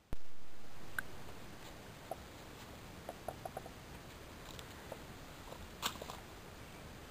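Handling noise from a handheld camera moving through forest undergrowth: a sharp click at the start, then faint hiss with scattered small ticks and snaps, a quick run of them around the middle and a louder one near the end.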